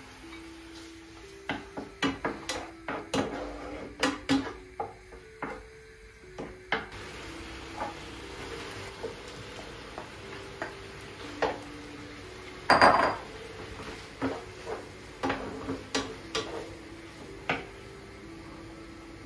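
Kitchen utensils clinking and knocking against dishes and pans: a string of separate sharp knocks, thickest in the first several seconds, with one louder rushing burst about thirteen seconds in. Soft background music notes play underneath.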